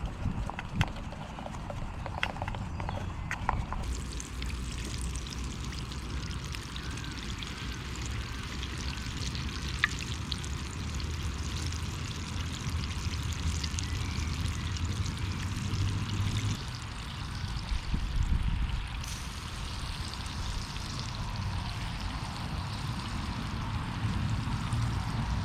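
Battered Mars bar deep-frying in hot oil in the cup of a Jetboil Zip gas stove, sizzling steadily. The sizzle starts suddenly about four seconds in, after a few clicks of handling.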